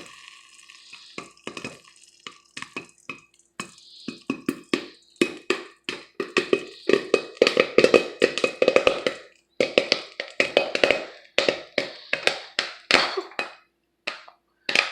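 Popcorn kernels popping in oil in a pot on the stovetop: scattered pops at first, coming thick and fast from about six seconds in, then thinning out near the end as the batch finishes.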